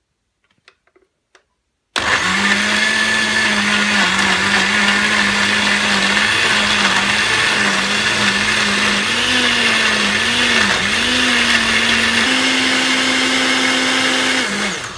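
Kenwood countertop blender switched on about two seconds in, grinding coriander leaves, tomato, onion and water into a chutney paste. Its motor hum wavers with the load, steps up in pitch near the end, then spins down and stops; a few soft clicks come before it starts.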